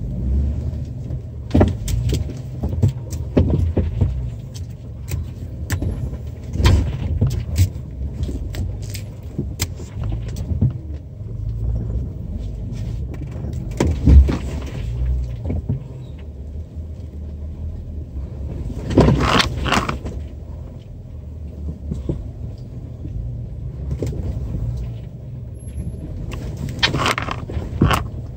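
Off-road vehicle crawling slowly over rocks, heard from inside the cab: a steady low engine and drivetrain rumble, broken by frequent knocks, clunks and rattles from the body and loose gear as the tyres climb over stones. There are two longer, louder rushes of noise, one about two-thirds of the way through and one near the end.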